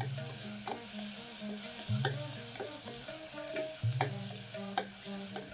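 Wooden spatula stirring and scraping onions and ground green masala frying in oil in a stainless steel pressure cooker, with a light sizzle and scattered clicks of the spatula against the pot. A soft low note pattern repeats underneath about every two seconds.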